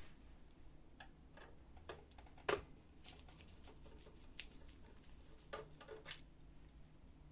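Faint, scattered clicks and taps of hands and tools working on a laser printer's internal parts, with one sharper click about two and a half seconds in and a few more near the end.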